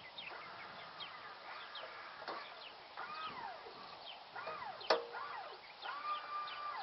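A chorus of animal calls: many overlapping wavering calls that rise and fall in pitch, each about half a second long, mixed with short high falling yelps. A single sharp click about five seconds in.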